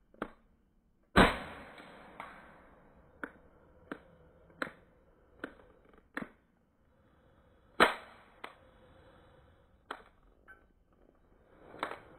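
Two sharp shots from a 4.5 mm pistol, about six and a half seconds apart, with smaller clicks and knocks in between.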